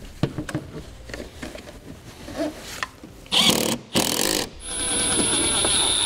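Plastic air box housing handled and seated with light knocks and rubbing. About three seconds in, a cordless driver runs in two short bursts, then in a steadier high whine from about four and a half seconds, driving the air box fasteners in.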